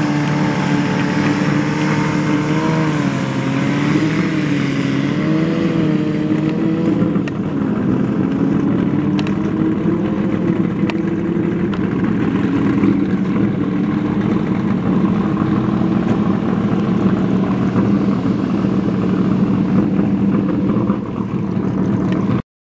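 Land-speed racing vehicle's engine running hard on the salt flats, its pitch wavering up and down. The sound cuts off suddenly near the end.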